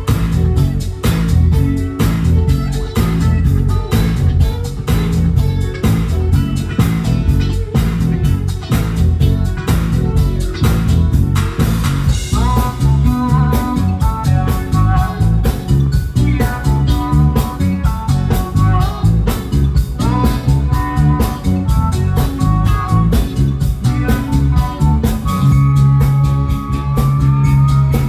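Rock band playing an instrumental passage live, with electric guitar, bass and drums. A steady drum beat runs underneath, and from about halfway through a guitar lead plays notes that slide up in pitch.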